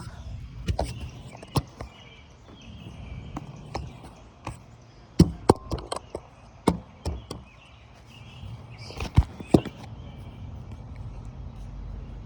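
Scattered sharp knocks and clicks at irregular intervals, a few in quick pairs, over a low steady rumble.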